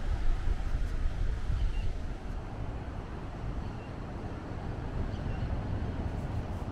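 Wind rumbling on the microphone over the steady wash of sea surf, easing a little after about two seconds.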